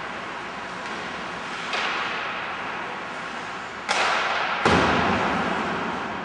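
Ice hockey play in a rink: three sudden loud hits, the last two about a second apart and the last the loudest, each ringing out and dying away slowly over steady rink noise.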